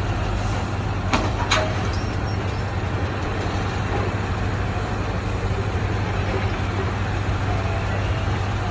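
Heavy mining machinery of an overburden shovel-loading operation running steadily with a low hum, with two short knocks just after a second in.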